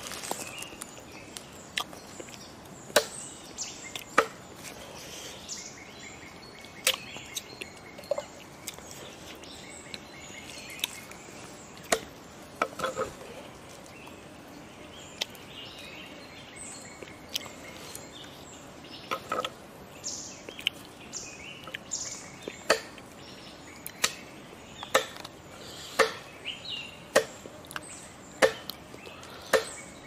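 Sharp knocks and clicks at irregular intervals, about twenty of them, coming more often in the second half, over a faint steady outdoor background.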